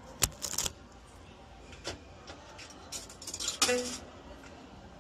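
Scattered clicks and rattles over a quiet background, with a cluster of them near the end and a brief faint voice-like sound.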